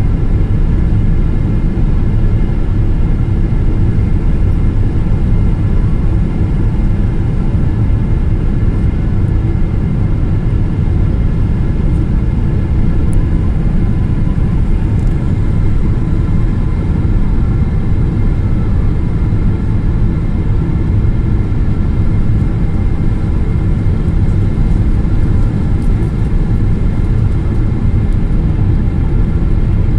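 Steady, loud low rumble inside the cabin of a Boeing 777-200ER airliner as it comes in to land: engine and airflow noise with faint steady tones above it.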